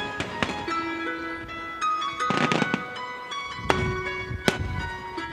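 Fireworks going off over music with long held notes: several sharp bangs, with a dense burst of crackling about halfway through.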